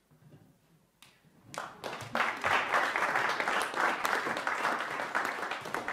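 Audience applauding: a few scattered claps about a second in, then full applause from about two seconds in.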